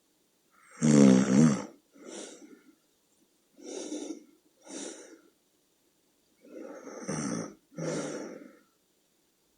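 A woman's snoring: one loud, pitched snore about a second in, then several shorter, softer snores with silent pauses between. The title calls it the snoring of sleep apnea syndrome.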